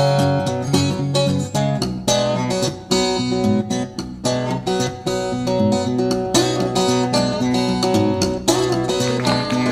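Acoustic guitar music, plucked and strummed at a steady pace.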